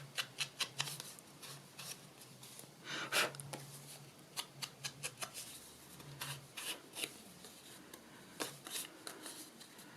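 An ink pad dabbed and rubbed against the edges of paper card: irregular short taps and rustles, with a louder one about three seconds in.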